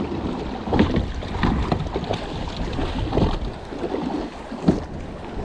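Choppy sea water slapping irregularly against the hull of a jet ski, with gusty wind buffeting the microphone.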